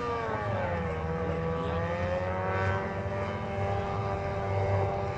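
Outboard motors on small racing boats running at full throttle, a high whine that dips in pitch about a second in and then holds steady.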